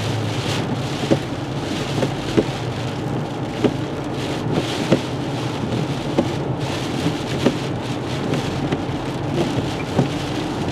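Heavy hurricane rain pelting a moving car and its tyres hissing on a flooded road, a steady dense rush. A light knock repeats about every second and a quarter.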